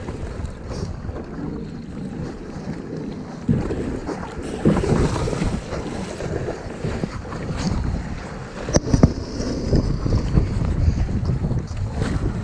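Wind buffeting the microphone over water splashing and slapping around a kayak, with louder surges of splashing and one sharp knock about nine seconds in.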